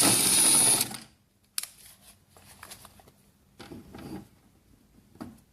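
A loud hissing, whirring noise for just under a second, with a thin high whine in it, then faint small clicks and scrapes as the screw at the back of a plastic garage door remote is undone and the remote is handled.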